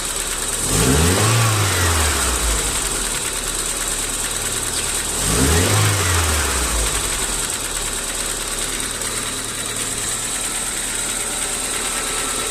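Car engine idling and revved twice, each time the pitch rising and falling back over about two seconds, with a knock (golpe) in the engine that the mechanic takes mostly for excessive valve clearance between the tappets and the camshaft.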